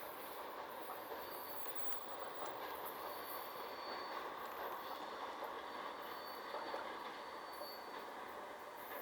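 Freight train wagons rolling along the track, a steady, fairly faint rumble of wheels on rails with a thin high wheel squeal that comes and goes.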